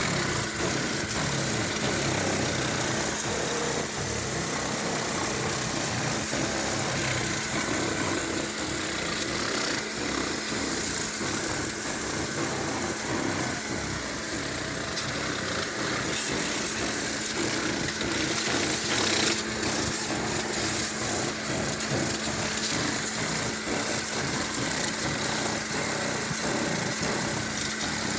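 Pressure washer (power sprayer) running steadily with a constant motor hum, its water jet hissing as it sprays down an engine bay.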